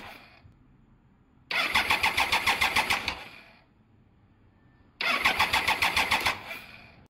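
Triumph Thunderbird motorcycle engine cranked on its electric starter in repeated short bursts with an even, rapid chugging beat and never catching: one burst ends just after the start, and two more of about two seconds each begin about 1.5 s and 5 s in. A spark plug is out and grounded on the cylinder head for a spark check before an ECU replacement.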